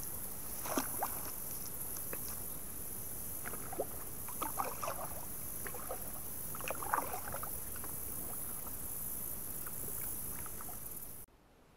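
A kayak gliding along a narrow, grassy swamp channel: scattered small splashes and rustles over a steady high hiss. The sound drops away abruptly near the end.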